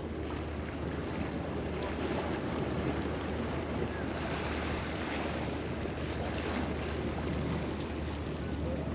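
Sea waves washing and splashing against the jetty rocks in a steady wash, with wind rumbling on the microphone.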